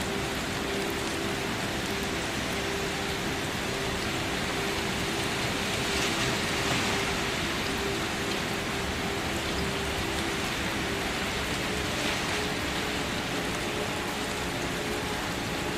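Steady rain falling, an even hiss of drops that swells slightly about six seconds in, with a faint steady tone underneath.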